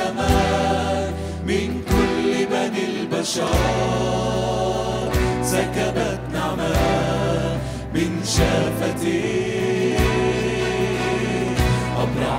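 A mixed choir and solo singers singing an Arabic Christian hymn with a steady beat, accompanied by flute and keyboard.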